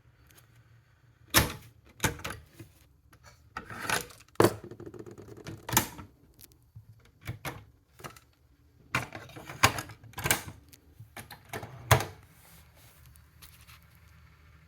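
Mechanical clicks and clunks from a Technics RS-B11W double cassette deck being operated by hand: its transport keys and cassette doors are worked, giving about a dozen sharp knocks at uneven intervals with brief rattles in between.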